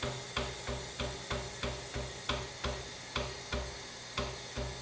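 Moore No. 3 jig grinder running its reciprocating up-and-down stroke cycle. A short click comes at each stroke, about three times a second, over a low hum that pulses in the same rhythm.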